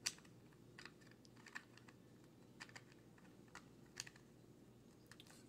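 Faint, scattered clicks and taps of hard plastic toy pieces being handled and fitted together, a click every half second to second.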